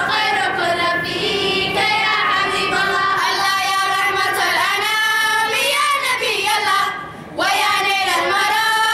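A choir of girls singing a nasheed together, with a brief break between phrases about seven seconds in.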